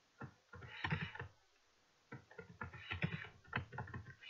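Computer keyboard typing: a short run of keystrokes, a pause of about a second, then a longer run of keystrokes.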